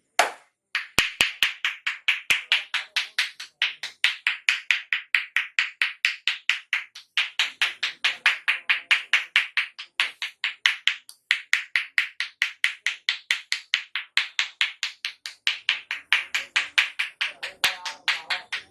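A barber's hands giving fast percussive slapping massage strokes, about five sharp slaps a second in runs of a few seconds with brief pauses between.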